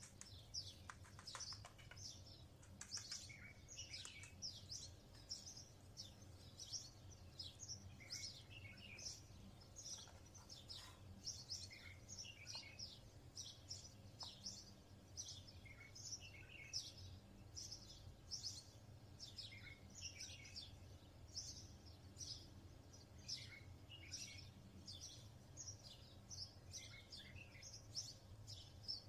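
Small birds chirping faintly: many short, quick, falling chirps, several a second, over a faint low hum.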